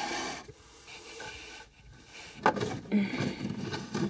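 Handling noise as plastic Breyer model horses and their toy stable are moved: a scrape at the start, a knock about two and a half seconds in, then rubbing and rustling.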